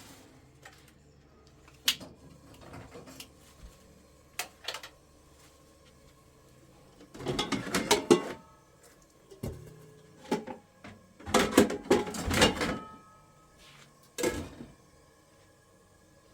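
Kitchen clatter: scattered single knocks, with two longer runs of rattling about seven and eleven seconds in, as of dishes, utensils or cupboard doors being handled.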